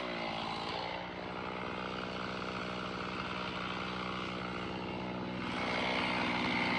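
Chainsaw engine idling steadily at an even pitch, off the throttle after cutting; it grows a little louder near the end.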